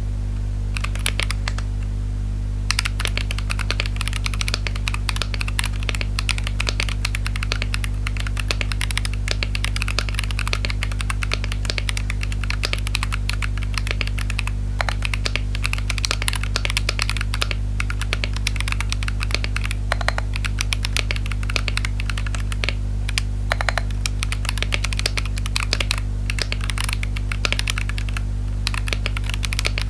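Typing on an RK61 Pro mechanical keyboard fitted with Akko CS switches: a fast, continuous run of keystroke clacks starting about a second in, over a steady low hum.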